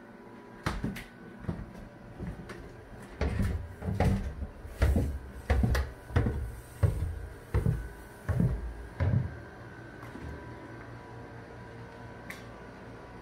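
Footsteps going down a flight of basement stairs, about a dozen heavy thudding steps that stop about nine seconds in. A faint steady hum carries on after them.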